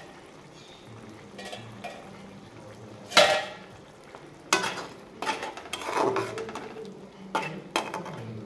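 Metal spatula stirring and scraping thick cooked masala in a metal kadhai, with repeated clinks and scrapes against the pan from about four and a half seconds in. One loud metal clank comes about three seconds in.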